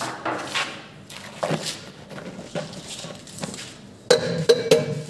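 A hand scraping and knocking inside a large steel mixing bowl, with metal rubbing and clanking, louder and ringing for a moment about four seconds in.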